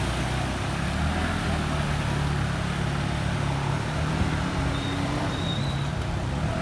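A motor vehicle's engine running at low, steady revs, pitch rising slightly about four to five seconds in, over a steady hiss.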